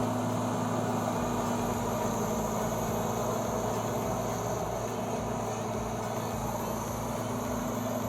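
Caterpillar D7 bulldozer's diesel engine running steadily at an even speed.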